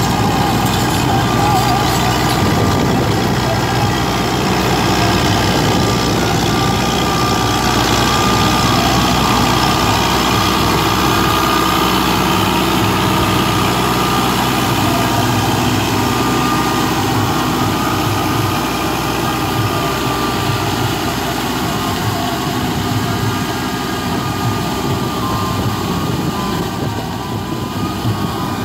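New Holland 7056 4WD tractor's diesel engine running steadily under load while its rear rotavator churns flooded paddy mud, with a steady whine from the drive. The sound is a little quieter near the end.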